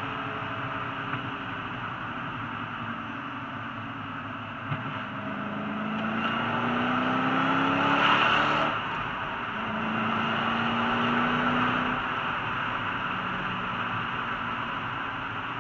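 Ford GT's engine heard from inside the cabin over steady road noise, its note climbing twice as the car pulls up the road, easing off briefly about eight and a half seconds in before rising again and then settling to a cruise.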